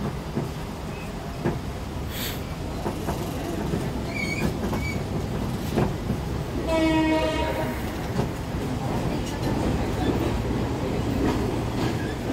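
Diesel train running with a steady low rumble as it moves slowly along the platform, with occasional wheel clicks; about halfway through, the train horn sounds one blast of about a second.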